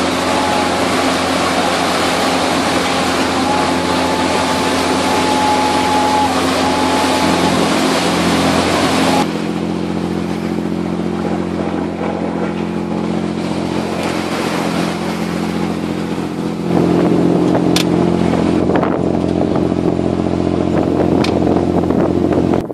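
Nordhavn 40 motorboat's diesel engine running steadily under way, a steady low hum, with wind and rushing wake water over it. The rush of wind and water drops about a third of the way through, and the engine hum grows louder near the three-quarter mark.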